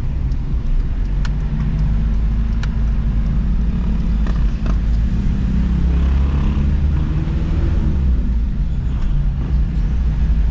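Car engine and road noise heard from inside the cabin while driving slowly: a steady low rumble and hum.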